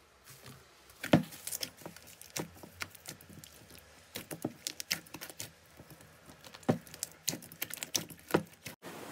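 Soft green slime being kneaded and squeezed by hand in a glass bowl, giving irregular sharp pops and clicks, the loudest about a second in.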